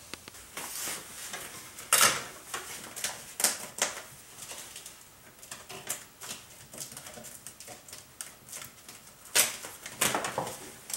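Plastic vapor barrier being peeled off a car door's inner panel: irregular crackling and rustling of the sheet, with a few louder sharp crackles about two seconds in and again near the end.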